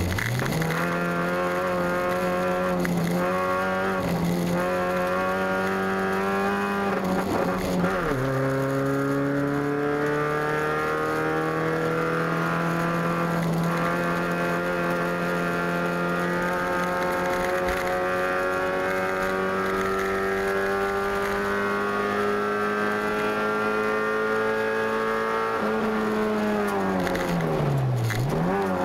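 Competition car's engine heard from inside the cabin, running hard under acceleration: in the first eight seconds the revs climb and drop several times with gear changes, then pull slowly and steadily upward for a long stretch. Near the end the revs dip sharply and climb again.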